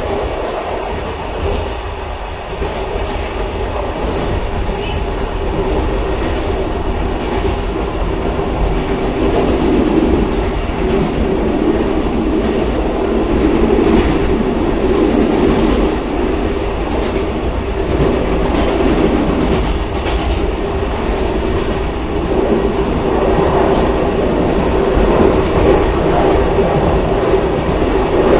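Railcar running along the track: a steady rumble and hum that swells slightly about ten seconds in, with occasional clicks from the wheels.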